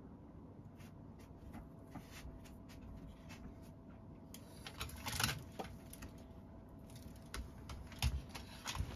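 Quiet room with scattered small clicks and a faint steady tone; a short rustle about five seconds in, and soft thumps and rustling of the futon bedding near the end as the cat shifts its weight.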